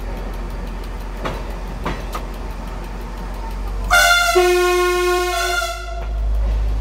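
Railcar horn sounding for about two seconds, a lower second note joining just after it starts, over the steady low drone of the running railcar.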